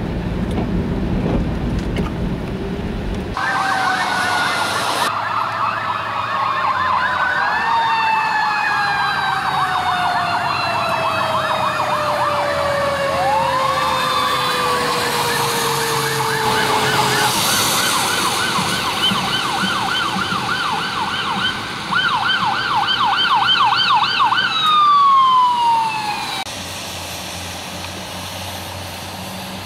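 Several emergency-vehicle sirens sounding at once, mixing slow rising and falling wails, a long falling tone and a rapid yelp. They start abruptly a few seconds in, after a low rumble, and cut off near the end, leaving a steady low rumble.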